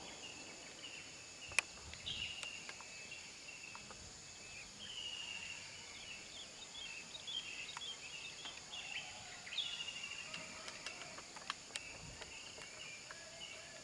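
Mountain forest ambience: birds chirping and trilling again and again over a steady high drone of insects, with one sharp click about a second and a half in.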